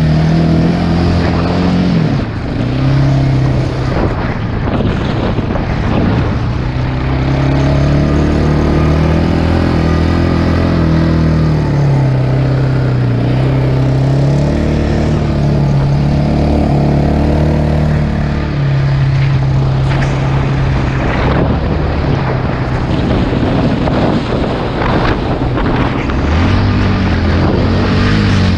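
Off-road vehicle engine driving through soft dune sand, its pitch rising and falling again and again as the throttle changes, over a constant rush of noise.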